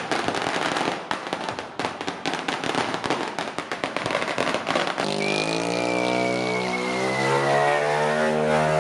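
A long string of firecrackers going off in a fast, dense crackle of sharp pops. About five seconds in, the pops give way to steady background music: sustained chords with a slowly falling high tone.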